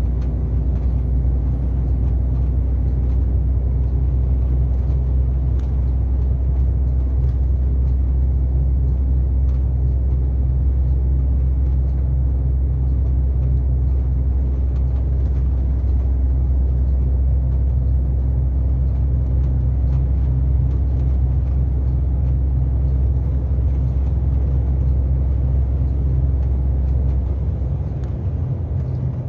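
Steady low engine and road rumble heard inside the cab of a moving truck cruising on the highway, easing slightly near the end.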